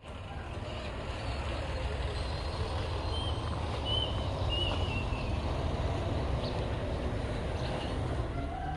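Heavy diesel machine engine running with a steady low rumble.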